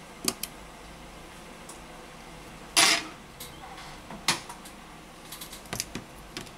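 Small clicks and taps of hands and a tool working on a smartphone's battery and display connectors, with one louder, longer clatter about three seconds in.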